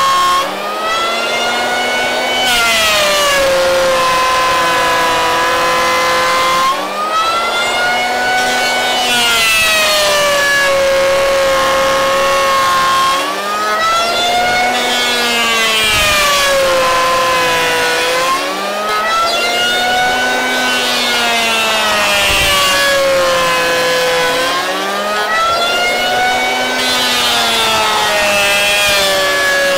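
Triton 180 mm electric hand planer running and cutting a hardwood slab pass after pass. The motor's pitch rises and falls in a cycle about every six seconds, five times over, as each pass loads and unloads it, with a hiss of shavings on top.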